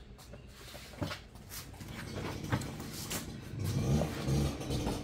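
Rustling and crinkling of a fabric air mattress and its plastic wrapping as they are unfolded and spread out by hand, with scattered sharp handling clicks. A low drone comes in about three and a half seconds in.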